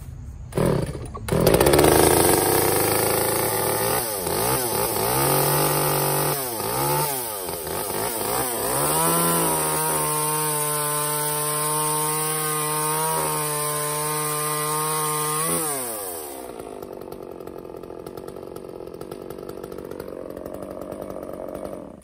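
Echo CS-345 two-stroke chainsaw, just back running after a carburetor cleaning, revving up and down. It is then held at high throttle for about six seconds while cutting through a log, then drops back to idle.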